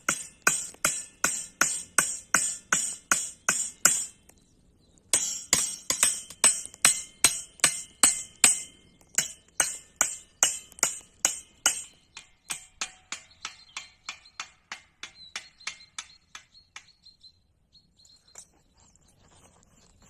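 A quick, even series of sharp knocks with a ringing, metallic edge, about three a second. They pause briefly about four seconds in, then grow fainter from about twelve seconds and stop near the end.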